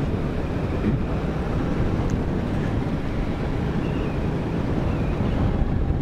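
Wind rushing over the microphone of a camera on a moving motorcycle, a steady low rumble with the bike's engine and road noise underneath.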